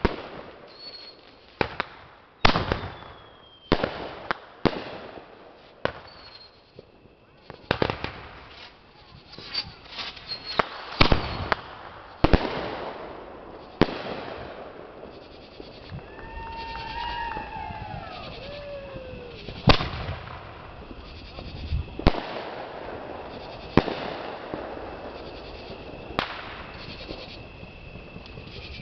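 Consumer aerial fireworks bursting overhead: a long run of sharp bangs, mostly a second or two apart, with a lull of several seconds past the middle.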